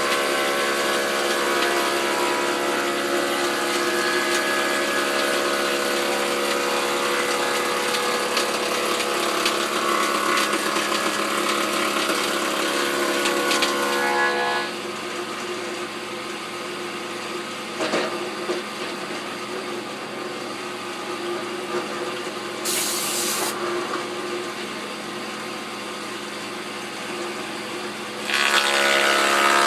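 Foley Belsaw planer/moulder with a 5-horse motor running steadily, its tongue-and-groove knives cutting 1 3/4-inch oak for about the first half. About halfway in it drops to a quieter hum running without a board in the cutters, and near the end cutting starts again with a sudden rise in level.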